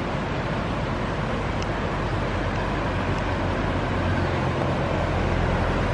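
Steady rushing of a rocky mountain stream, growing a little louder in the second half as it is approached.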